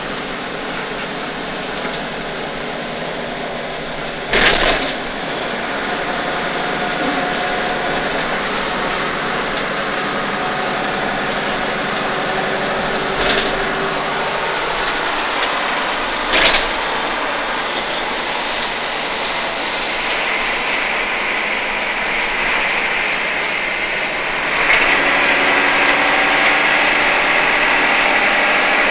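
Inside a moving bus on a wet road: the steady running noise of its engine and tyres, with a few sharp knocks, and a hiss that grows louder near the end.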